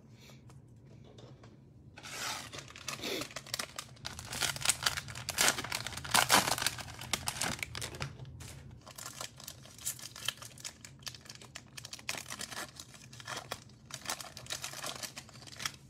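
Foil wrapper of a basketball trading-card pack crinkling and tearing as it is ripped open by hand, starting about two seconds in and going on in irregular crackles.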